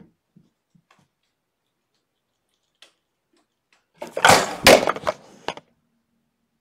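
A room camera knocked off its mount by a kitten, clattering and crashing as it falls about four seconds in: a quick run of loud knocks and rattles lasting about a second and a half, the second big hit the loudest.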